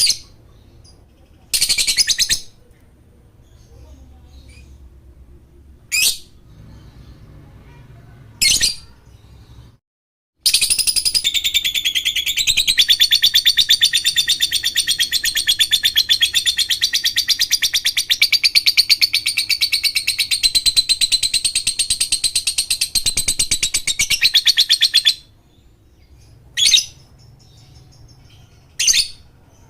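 Lovebird calling: a few short, sharp, high chirps, then a long, very rapid chattering trill of about fifteen seconds, the ngekek song prized in lovebirds, then two more short chirps.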